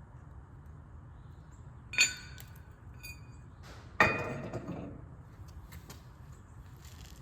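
Two metallic clanks about two seconds apart, the second louder with a short ring after it: metal parts or tools being knocked or set down.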